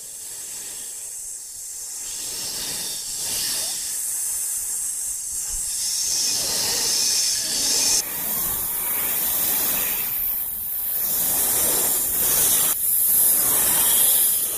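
A steady, loud hissing noise with no clear pitch. It grows louder over the first few seconds and shifts abruptly twice, about 8 and 13 seconds in.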